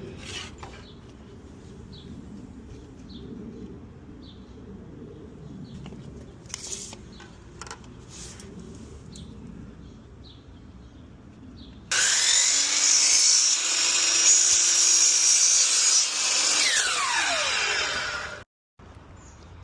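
Faint scattered clicks of handling, then about twelve seconds in a power saw runs loudly for about six seconds, cutting wooden trim, its pitch falling near the end as the blade winds down before it stops.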